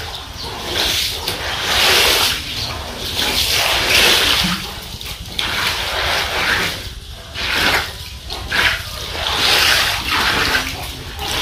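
Shallow floodwater on a concrete floor splashing and sloshing as hands push through it, in repeated swells every second or two.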